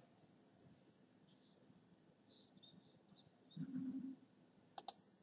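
Near silence with faint room noise, broken by a short low hum about three and a half seconds in and a quick pair of computer mouse clicks near the end.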